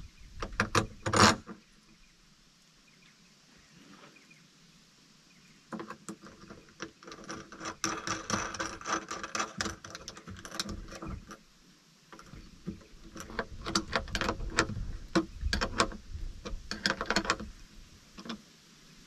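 Stainless steel bolts, nuts and a hand tool clinking and rattling as a stainless flat bracket is bolted on by hand. There is a short burst about a second in, then a quiet gap, then long runs of quick metallic clicks in the middle and again later.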